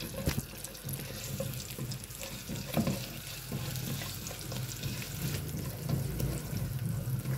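Garlic, cumin seeds and a bay leaf frying gently in a little hot oil: a steady soft sizzle with small crackles, stirred with a silicone spatula. A low steady hum runs underneath.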